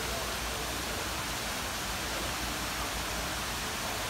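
Steady hiss of indoor room noise with a low, even hum underneath.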